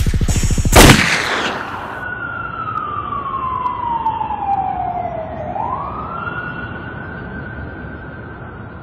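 A beat ends with a loud hit about a second in. Then a single siren wail slowly falls in pitch, sweeps back up and holds high, like a police siren.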